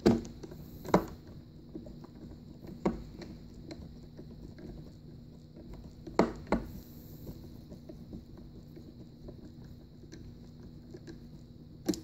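Hand handling a wooden servo torque arm screwed onto a plastic project enclosure: a handful of sharp knocks and clicks, the loudest at the very start and about a second in, with soft scratching and rubbing between them.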